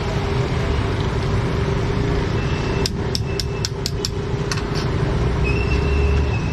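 Steady roadside traffic noise with a low rumble and a constant hum, broken about three seconds in by a quick run of several sharp clicks.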